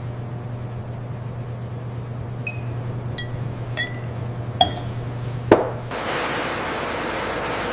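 Factory machinery with a steady low hum and five sharp metallic clinks that ring briefly, the last a louder knock. About six seconds in it changes abruptly to a steady rushing noise with a faint whine.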